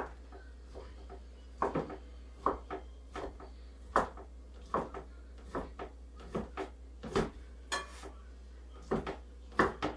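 A knife chopping cooked chicken breast on a cutting board: irregular knocks of the blade striking the board, about two a second.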